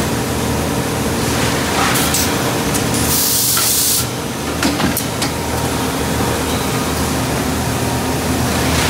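Industrial machinery running steadily with a low hum and hiss, broken about three seconds in by a burst of air hiss lasting under a second, followed by a couple of sharp clicks.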